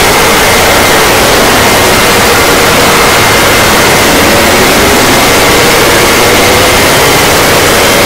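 Very loud, heavily overdriven emergency alert alarm audio, distorted into a steady static-like roar, with a faint steady high tone buried in it.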